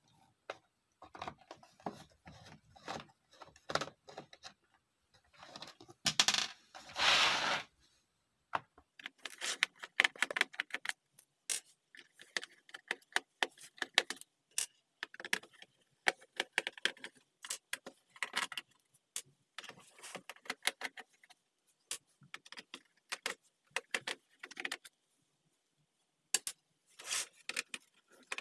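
Rapid, irregular clicks and light plastic clatter from a computer keyboard being handled during cleaning, with a rushing noise lasting about two seconds some six seconds in.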